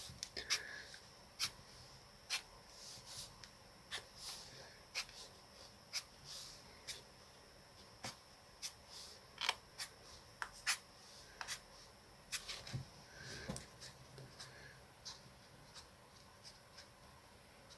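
Faint coloring sounds: irregular light taps and clicks of a coloring tool, a few scattered through every second or two, over a steady faint hiss.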